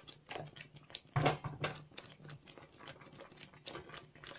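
Spatula stirring thick, wet masala paste in a pan: irregular squelching and scraping clicks.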